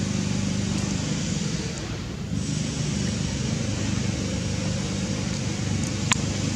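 Steady outdoor background noise, heaviest in the low range, with a single sharp click about six seconds in.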